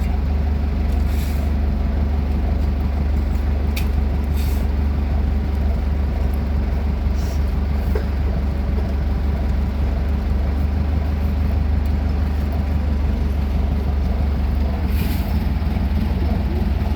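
Heavy diesel road-construction machinery running steadily with a deep engine rumble, with a few short hisses scattered through it.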